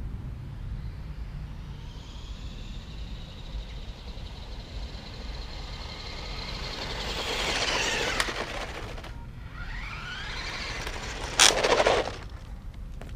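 Small electric RC monster truck running at speed toward the microphone: a high motor-and-gear whine that grows louder and wavers in pitch as it approaches, eases off briefly, then picks up again. A short, loud burst of noise comes near the end as it passes close by.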